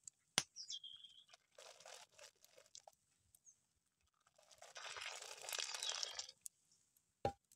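Thick juniper-berry molasses boiling in a pot, bubbling and spluttering in irregular bursts, the longest a few seconds in, with a sharp click near the start and another near the end.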